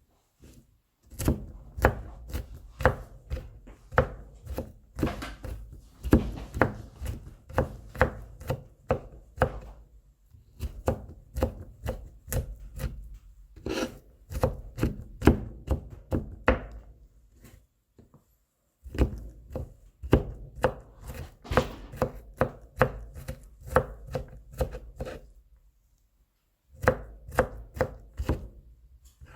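Kitchen knife mincing garlic cloves on a cutting board: quick chops at about three a second, in runs broken by short pauses.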